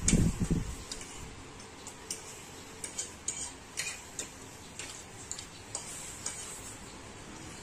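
Noodles being slurped at the start, the loudest sound, then scattered light clicks of metal forks against ceramic plates.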